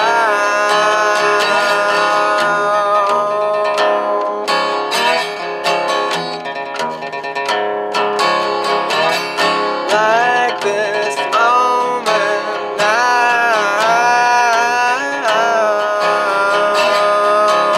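Resonator guitar picked in a blues-style song, with a man's voice singing sliding, drawn-out notes over it.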